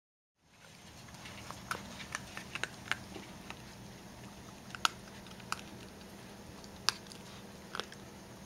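Young raccoons eating: irregular sharp crunches and clicks over a low steady hum, starting about half a second in, with two louder cracks about five and seven seconds in.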